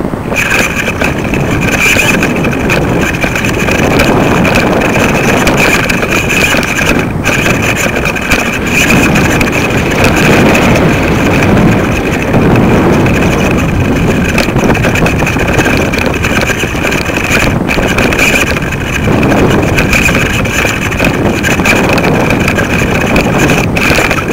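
Wind buffeting the microphone of a small camera hung from a kite line: loud, unsteady rumbling that swells and fades, with a steady high-pitched whine running through it.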